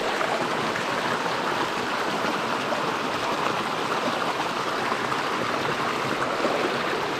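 Small trout stream running over rapids: a steady rush of water.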